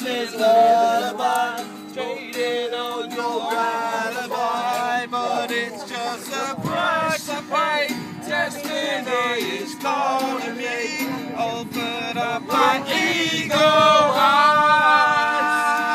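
Acoustic guitar strummed with a man singing along, with notes held and bending in pitch.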